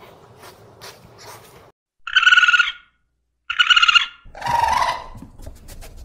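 Faint rustling, then a raccoon's calls: two high-pitched trilling calls about a second apart, followed by a lower, rougher call.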